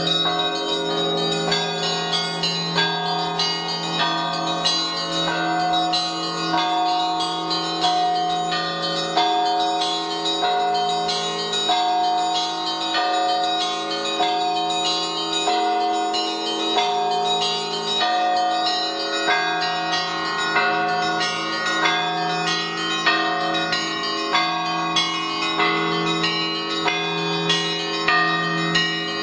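A set of Orthodox church bells rung by hand. Smaller bells are struck in a quick, steady rhythm over the lingering hum of a large bell.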